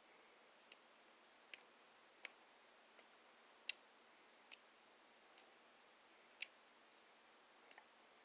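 Faint sharp ticks, about nine at irregular spacing, two of them louder, from fingers flicking white paint spatter onto a painted sheet; otherwise near silence.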